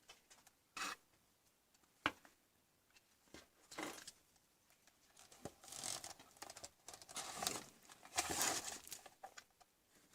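Handling noises: a sharp click about two seconds in, then scattered rustling and scraping bursts, the longest in the second half.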